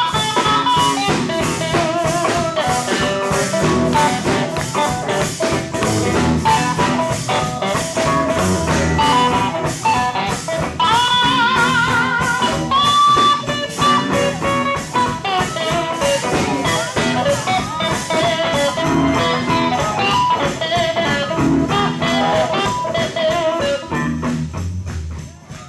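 Live sacred steel gospel music: a steel guitar plays sliding, wavering lead lines over a fast drum-kit beat. The music fades out near the end.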